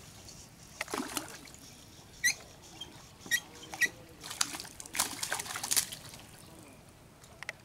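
A hooked fish splashing and thrashing at the surface of a pond as it is pulled toward the bank on the line, in a string of short, sharp splashes.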